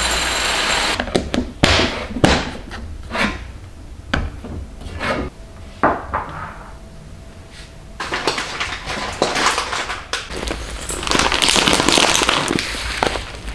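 Household handling sounds: a string of light knocks and clatters of objects being set down and moved, with stretches of uneven rustling noise, the longest in the second half.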